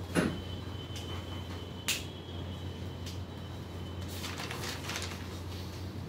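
Quiet classroom room tone: a steady low hum with two sharp clicks, one right at the start and one about two seconds in, then a soft rustle about four seconds in.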